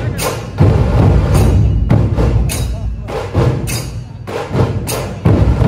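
A massed dhol-tasha troupe drumming: many large barrel dhols beat a steady, loud rhythm, with a sharp accent about once a second.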